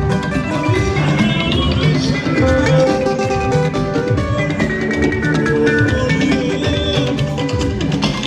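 Music with guitar and a drum kit keeping a steady beat.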